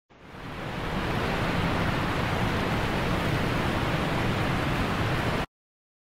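Shallow creek water running over rocks, a steady rushing that fades in over the first second and cuts off abruptly about five and a half seconds in.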